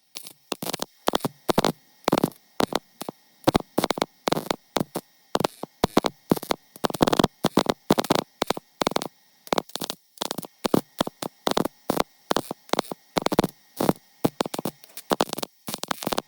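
Welder stitch-welding a sheet-metal rust patch on a car body's underside: short crackling spurts of arc, two or three a second, each followed by a brief pause.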